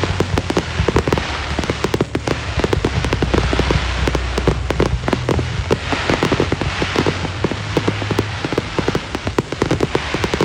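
Fireworks crackling and popping in a dense, rapid rattle like heavy rain, with low steady tones underneath that change pitch a few times.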